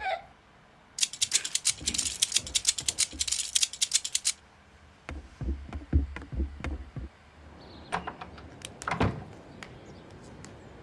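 A rapid clatter of many small sharp clicks for about three seconds, then a few scattered knocks and taps.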